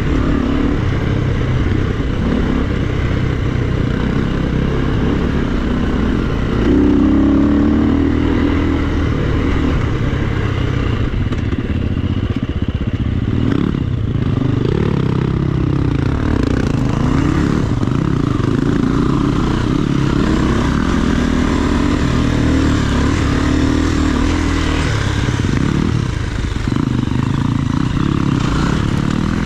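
KTM enduro dirt bike engine running under load on a rocky trail, its revs rising and falling with the throttle, with a brief harder rev about a quarter of the way in.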